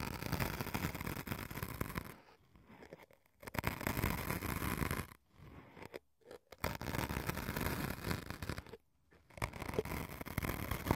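Ear-pick tips scratching and scraping across white sponge-like cubes, in runs of about two seconds separated by short pauses.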